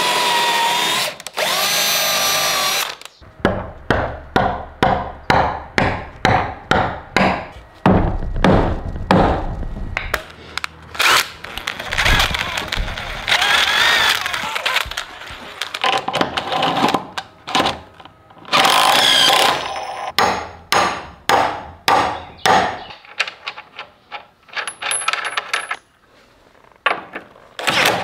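A cordless drill with a long bit boring through a pressure-treated 2x4 frame rail, whining steadily in two runs at the start. After it come trains of sharp knocks at about two a second and bursts of a DeWalt cordless impact driver running bolts into the wooden frame.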